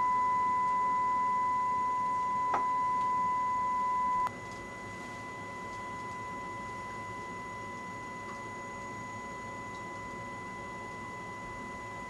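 Steady sine-wave test tone from a speaker driven by a BITX transceiver's audio amplifier, with a fainter second tone an octave higher. A faint click comes about two and a half seconds in. A little over four seconds in, the tone drops abruptly to a lower, steady level.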